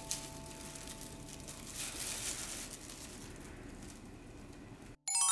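Quiet room sound with faint rustling while the last held notes of the background music fade away. Right at the end, after a brief dropout, a bright glockenspiel-like chime run begins.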